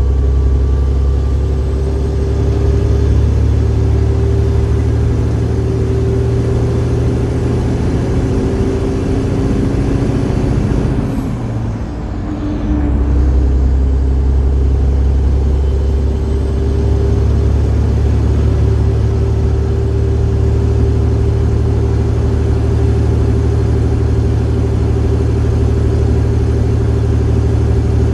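Detroit Diesel Series 60 12.7-litre inline-six diesel pulling a heavy load of about 135,000 lb, running steadily. About midway the engine note drops off and dips briefly as a gear is changed, then comes back under power.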